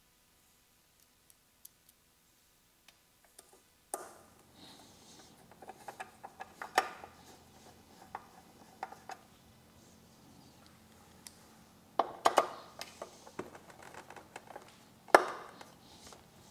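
Near silence at first, then scattered small clicks, taps and clinks of a screwdriver and bolts being worked into a motorcycle fairing's radio and plastic mounts. A few sharper knocks come about three-quarters of the way through, and the loudest comes near the end.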